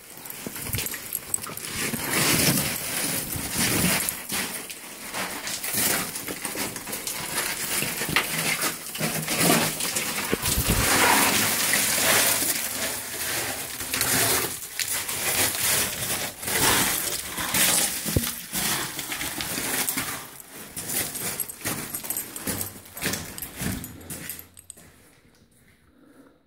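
Footsteps crunching and scuffing on the loose rocky floor of a mine tunnel, irregular and uneven, with rustling handling noise; they stop near the end.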